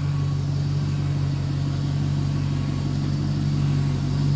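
2006 Chevy Silverado pickup's engine idling steadily with an even low hum.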